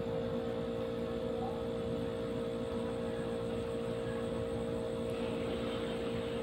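A steady hum with one constant tone, unchanging throughout.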